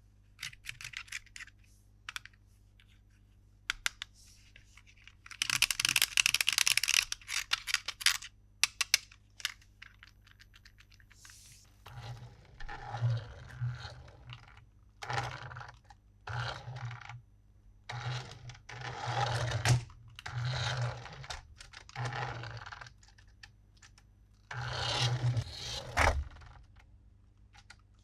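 Hands handling plastic toys and packaging: scattered clicks, a loud tearing or crinkling rustle lasting a couple of seconds, then a series of short plastic scrapes and rattles.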